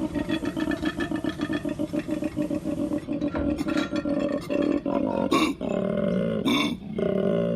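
An animal's roaring call: a long run of rapid pulses for about three seconds, then shorter, louder calls with a few sharp bursts in the second half.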